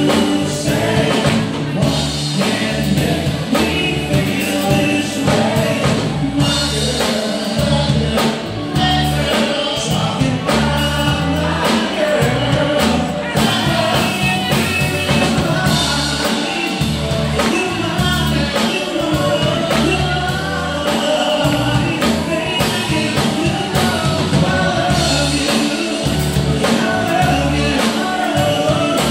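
Live band playing an upbeat song: a singer over drums and a moving bass line, with a steady beat.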